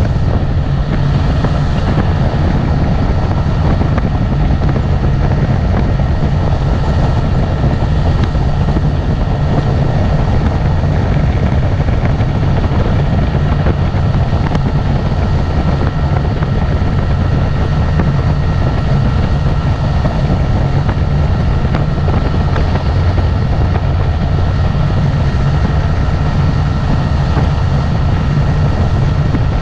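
Motorboat engine running steadily under way: a constant low drone with a thin steady whine above it.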